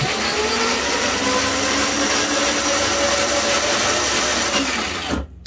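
Electric drive motors and plastic gearboxes of a ride-on toy Jeep spinning the raised rear wheels, a steady whine with gear noise. The pitch rises briefly at the start and drops about five seconds in as the motors are cut and the wheels spin down. The wheels run freely on a newly replaced rear axle.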